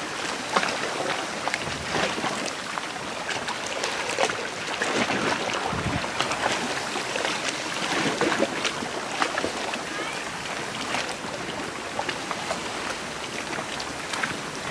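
Sea water lapping and splashing at the shore: a steady wash peppered with many small clicks and crackles.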